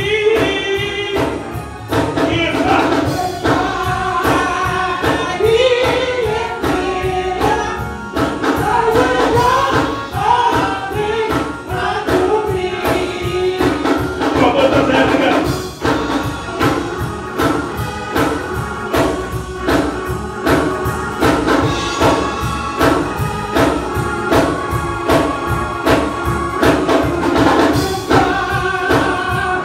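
Gospel praise team of men and women singing together into microphones over a steady rhythmic beat.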